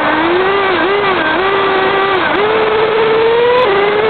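Kyosho RC car's motor heard from a camera mounted on the car as it drives, its pitch rising and falling with the throttle: a long climb that drops sharply near the end, over a loud steady rush of noise.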